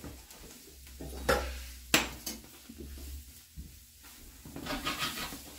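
Spatula scraping and knocking against a frying pan while onions and spices are stirred in oil, with a few sharp knocks about a second and two seconds in, and a faint sizzle.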